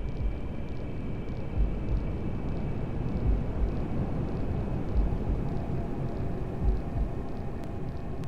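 Hair dryer running with a steady rushing noise and a faint motor whine, over a recorded fetal heartbeat: low, deep thumps about every one and a half seconds.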